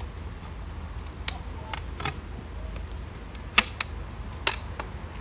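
Scattered sharp clicks and light knocks, about six in five seconds, over a steady low background noise: small objects being handled and set down.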